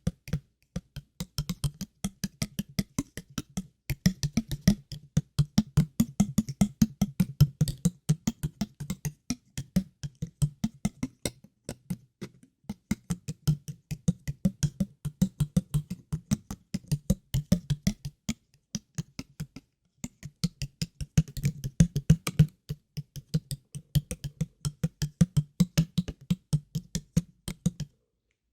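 ASMR water-drop sounds: short, hollow, pitched plops in quick succession, several a second, with a few brief pauses.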